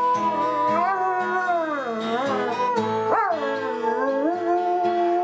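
A dog howling along to music, its pitch sliding up and down with a sharp upward swoop about three seconds in, over steady music.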